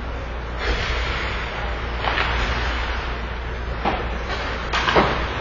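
Ice hockey play in an indoor rink: a handful of sharp scrapes and knocks from skates, sticks and puck over a steady low hum, the loudest near the end.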